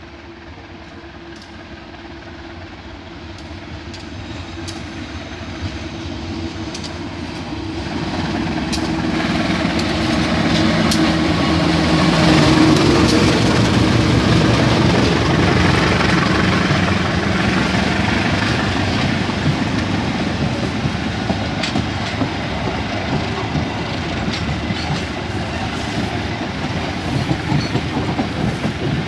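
CC 201 diesel-electric locomotive approaching and passing close by, its engine growing steadily louder to a peak about twelve seconds in. A string of baggage and passenger cars then rolls past with a steady rumble and clickety-clack of wheels over the rail joints.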